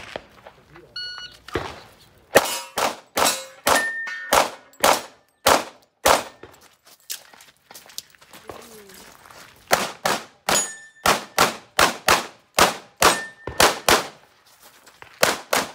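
A shot timer beeps once about a second in, then a semi-automatic competition pistol fires rapid strings of shots, mostly in quick pairs. There is a pause of about two seconds midway while the shooter moves and reloads, then firing resumes.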